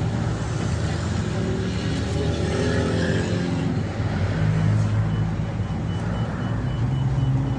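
Scania OmniLink city bus heard from inside the passenger cabin: the engine runs steadily under way over road and tyre noise, its pitch shifting about two to three seconds in.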